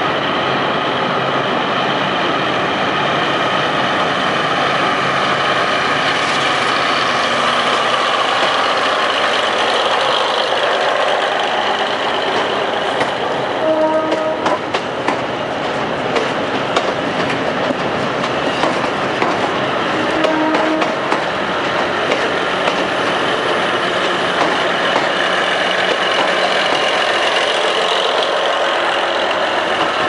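KiHa 181-series diesel railcar set pulling slowly out and passing close by, its diesel engines running steadily under load. In the middle the wheels click over rail joints, and a short pitched tone sounds twice.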